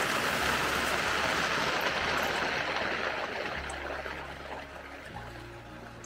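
Heavy rain falling steadily on a camp tarp overhead, a dense hiss that gradually fades toward the end.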